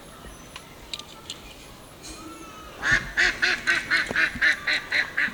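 A rapid run of about a dozen short, nasal, quack-like calls, about five a second, starting about three seconds in.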